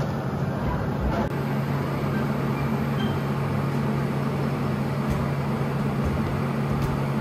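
Blower of a floating-ball air-jet exhibit running steadily: a low drone with a rush of air, the jet holding a ball up in its stream.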